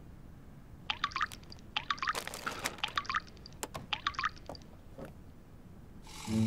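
Liquid poured into a glass in several short pours, the pitch rising as it fills, with a couple of sharp glassy clinks. Music comes in near the end.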